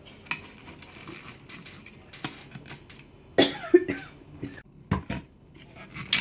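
Clear plastic blender bowl and lid being handled, with scattered light clicks and knocks of hard plastic and crinkling of plastic wrap. A short loud burst comes about three and a half seconds in, with a couple of smaller knocks around five seconds in.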